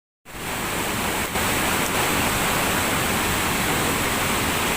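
Thamirabarani River in flood: a steady, even rush of fast-flowing floodwater, starting abruptly a moment in after a brief silence.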